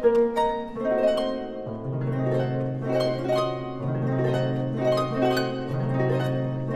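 Single-action pedal harp (harpe organisée) played solo: a quick run of plucked notes in the middle and upper range. From about two seconds in, low bass notes are struck about every two seconds and ring on beneath.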